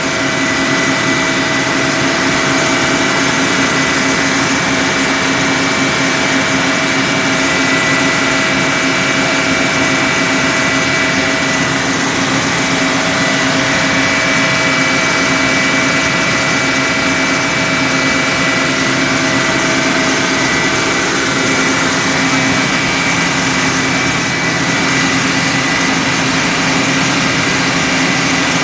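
A loud engine running steadily, with a constant high whine over a lower hum.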